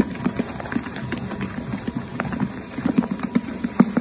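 Electric mochi-making machine pounding a smooth ball of mochi dough: the dough is slapped and thumped against the bowl as it turns, making soft, irregular thuds several times a second.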